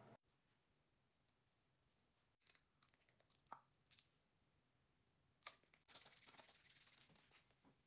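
Near silence: room tone with a few faint scattered clicks and, near the end, a faint rustling.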